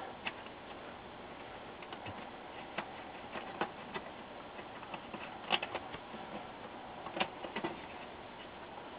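Scattered faint clicks and taps as the monitor's front display ribbon cable and its connector are handled against the metal chassis, over a steady low hiss. Two slightly louder clicks come past the halfway point.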